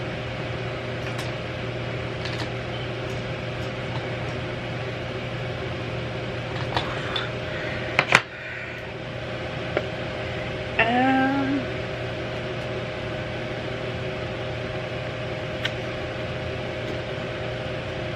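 A steady mechanical hum, like a room fan or air conditioner, with a few sharp clicks and taps from handling a new makeup palette and its box, the loudest about eight seconds in. A short hummed 'mm' from a voice comes about eleven seconds in.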